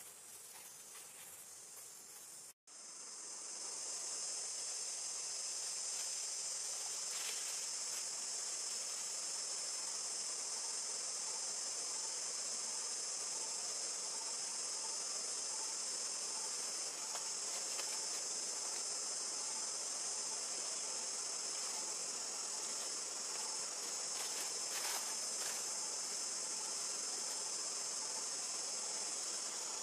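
Steady high-pitched chorus of forest insects, unbroken in rhythm. It cuts out for an instant near the start and comes back louder.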